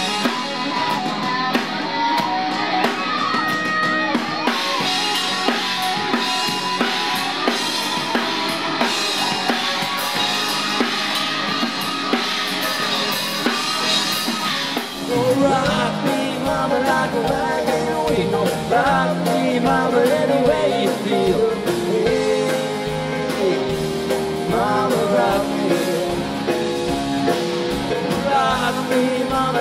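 Rock band music with singing, a drum kit and electric guitar. About halfway through it changes abruptly to another song with a heavier bass and a singing voice out in front.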